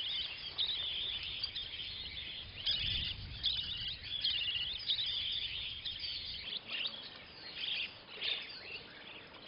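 Budgerigars chirping: a busy run of short, high chirps and twitters, with no pause between them.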